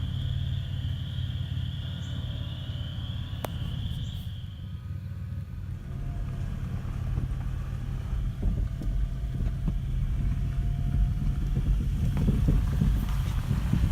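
A vehicle driving along, with a steady low rumble from the engine and road. A wavering high whine sounds over it for the first four seconds or so.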